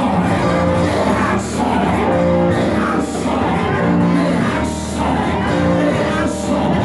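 Worship music from a church band, with held keyboard notes and a beat, and voices singing and shouting over it.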